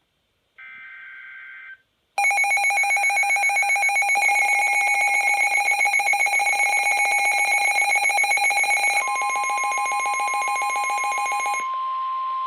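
An Emergency Alert System SAME header burst, a short screechy two-pitched data tone, then a loud electronic alert tone pulsing rapidly with a buzzy edge. About nine seconds in, a steady single-pitch warning tone joins it, and it carries on alone after the pulsing stops near the end: the attention signal that opens a new weather alert.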